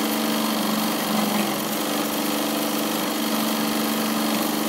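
Juki DNU-1541S industrial walking foot sewing machine running steadily at speed, stitching through fabric, with its continuous bobbin winder engaged and filling a second bobbin. An even, unbroken mechanical hum.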